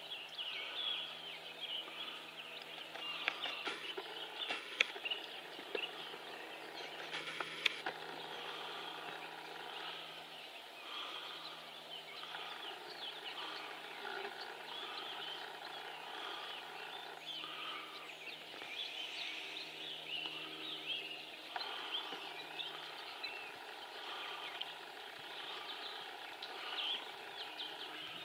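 Outdoor rural ambience: a dense chorus of birds chirping over a steady low hum, with a few sharp clicks or knocks between about three and eight seconds in.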